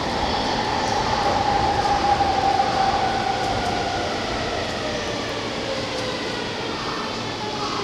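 JR 185 series electric train rolling slowly alongside the platform and braking to a stop, with a whine that falls in pitch as it slows. The sound is loudest in the first few seconds and eases off toward the end.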